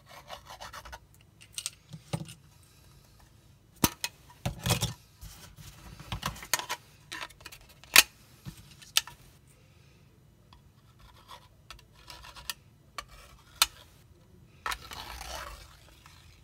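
Quick scratching strokes of a UV keychain light's tip drawn across the glittery surface of a 3D-printed drawing board. They give way to scattered sharp clicks and taps as the plastic board and the light, with its metal key ring, are handled, the loudest about eight seconds in. A short rubbing swish comes near the end.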